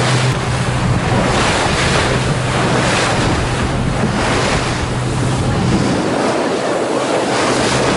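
Wind buffeting the microphone over the rush of water and waves around a Mini 6.5 racing sailboat sailing fast. A steady low motor hum runs beneath and fades in the last couple of seconds.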